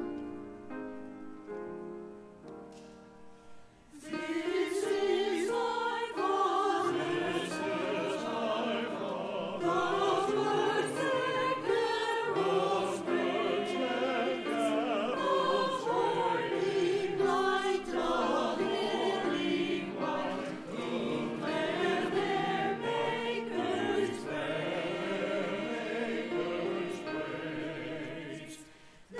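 Mixed church choir of men's and women's voices singing. A few seconds of instrumental introduction come first, and the choir comes in about four seconds in.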